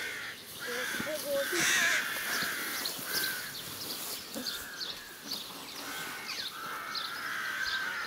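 Crows cawing over and over, a harsh call about every second, with short high chirps between the calls.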